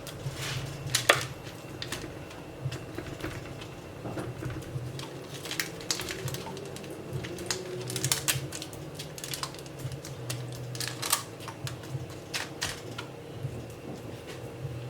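Irregular light clicks and taps from a brush dabbing melted margarine and oil onto potatoes on a paper-lined baking tray, with a sharper knock about a second in, over a steady low hum.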